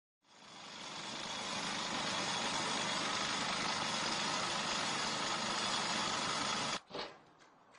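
Engine-driven manhole cutting machine running and cutting a circle through the asphalt around a manhole frame: a steady, loud grinding noise that fades in over the first second and stops abruptly about a second before the end, followed by a few faint knocks.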